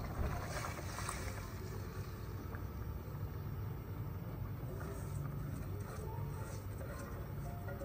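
Soaked rice poured and pushed by hand from a steel bowl into a pot of chicken broth, with faint soft splashes and scrapes, over a steady low rumble.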